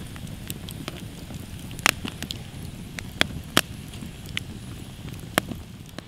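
Wood campfire crackling, with irregular sharp pops, the loudest about two and three and a half seconds in.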